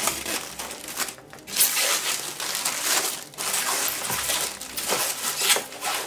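Protective plastic film being peeled off a tempered-glass PC side panel and handled: a dense, irregular crinkling and crackling, with a short lull just after a second in.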